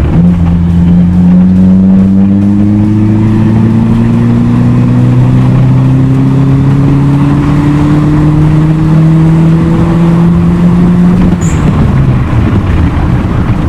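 Toyota Glanza's turbocharged 4E-FTE four-cylinder engine pulling under acceleration, heard from inside the cabin. The engine note rises steadily through one long pull, then drops away about eleven seconds in as the throttle is lifted.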